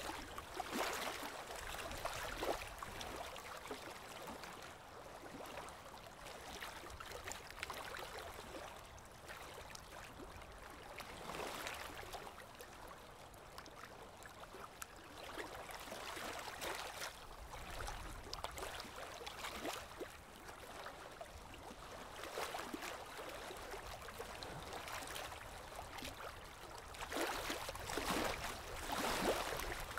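Water trickling and gurgling in a shallow stream, swelling louder now and then and most of all near the end.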